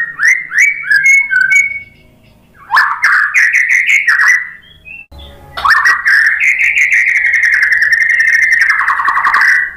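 White-rumped shama (murai batu) singing loud whistled phrases. First comes a quick run of short rising and falling notes, then a second dense burst about three seconds in. After a short pause, a long unbroken warbling phrase lasts about four seconds and stops near the end.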